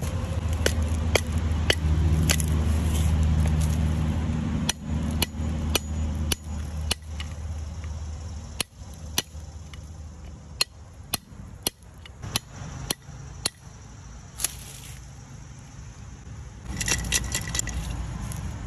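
A metal hand tool tapping and scraping at a dirt-crusted pot's lid and rim, giving a string of sharp clicks and knocks, about two a second in the middle stretch, with a brighter cluster of clinks near the end. A low steady hum runs underneath for roughly the first half.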